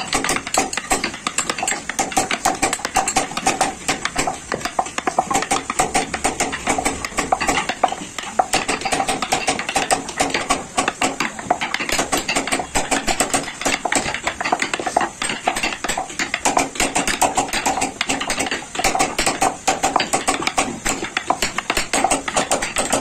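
Wooden mallet tapping a steel carving chisel into a wooden vase: a steady run of quick, sharp taps, several a second, over a faint steady hum.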